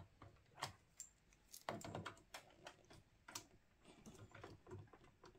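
Faint, scattered clicks and scrapes of a VGA monitor cable plug being fitted onto a graphics card's port.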